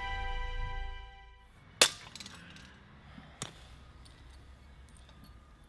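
A ceramic piggy bank smashed with a hammer: two sharp cracks, the first and loudest about two seconds in and the second about a second and a half later, followed by small clinks of shards. Held music chords fade out just before the first crack.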